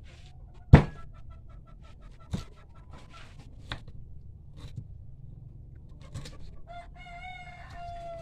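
Chickens: a series of short repeated clucks in the first few seconds, then a rooster crowing, one long steady-pitched call beginning about a second and a half before the end. A sharp knock about a second in is the loudest sound, with fainter knocks after it.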